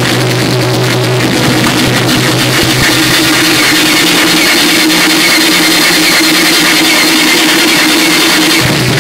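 Loud, harsh electronic noise music played live on electronic gear through a mixer: a dense wall of distorted noise over steady droning tones. The low bass tone drops out about three seconds in and comes back just before the end.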